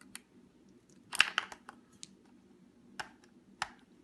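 Scattered plastic clicks and short clatters from a handheld label maker and its AAA batteries being handled. The loudest cluster comes about a second in, with two more clicks about three seconds in.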